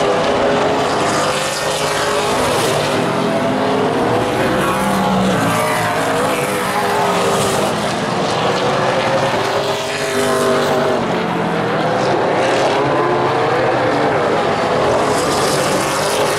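A pack of super late model stock cars racing, several V8 engines overlapping and rising and falling in pitch.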